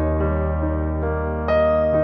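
Soft background piano music, slow sustained notes over a held bass, a new note coming in about a second and a half in.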